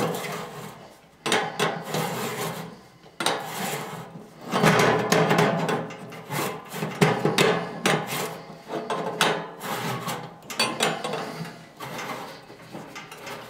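Flat steel drain tool turning the threaded top flange of a commercial sink drain, scraping and knocking metal on metal in the stainless steel bowl as the flange is tightened, in several bursts with short pauses.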